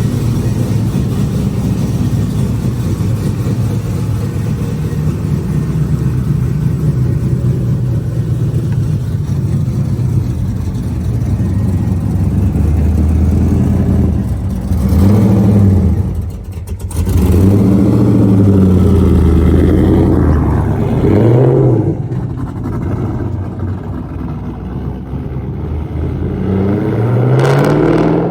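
2002 Pontiac Trans Am WS6's LS1 V8 engine running steadily, then revved several times in the second half, its pitch rising and falling with each rev.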